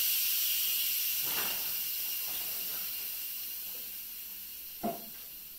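Instant Pot's steam release valve hissing as the cooker's pressure is quick-released, the hiss steady and slowly fading. The owner takes the quick fade for the older pot not having built up much pressure. A short knock about five seconds in.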